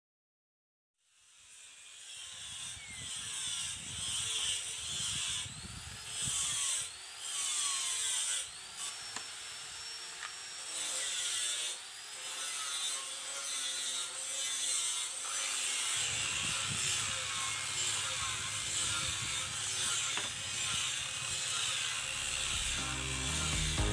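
Rasping and scraping of hand-tool work on a workpiece, with irregular strokes, starting about a second in. Music comes in near the end.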